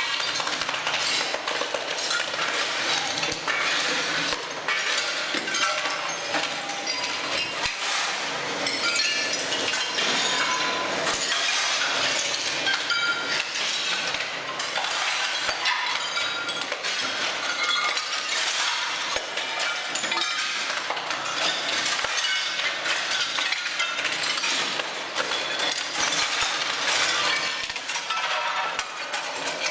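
Ceramic floor tiles cracking and clinking continuously as a ROLL-STRIPPER floor stripper's blade prises them off the floor. Broken shards clatter against one another.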